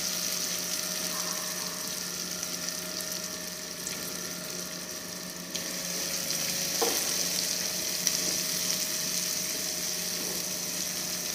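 Chopped onions sizzling in hot oil in a kadhai just after going in, stirred with a silicone spatula, with a couple of light knocks of the spatula against the pan about two-thirds of the way through.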